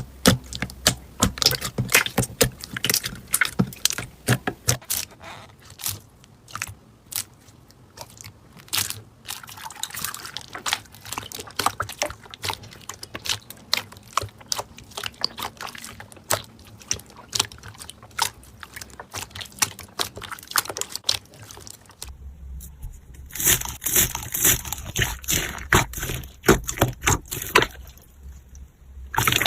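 Slime being squeezed and poked by hand: a dense, irregular run of crackling clicks and pops. After a short lull about 22 seconds in, the crackles turn sharper and brighter.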